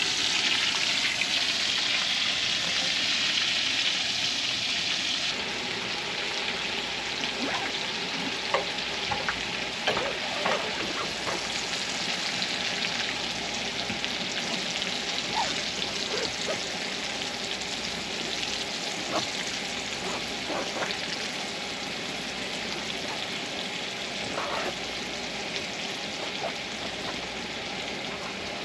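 Vegetables sizzling in a frying pan, a steady hiss that eases a little about five seconds in. Occasional short taps and scrapes come from a utensil stirring them.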